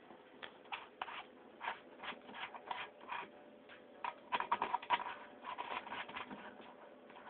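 Irregular light clicks and taps, with a quick cluster of them about four seconds in, over a faint steady hum.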